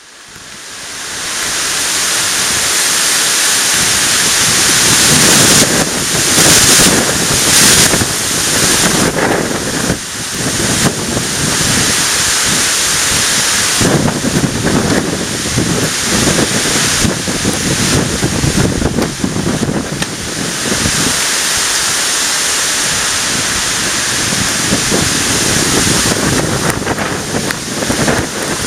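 Hurricane Sandy's back-end winds gusting hard, a loud continuous rush that swells and eases in surges, with wind buffeting the microphone. It builds up over the first couple of seconds and is loudest about six to eight seconds in.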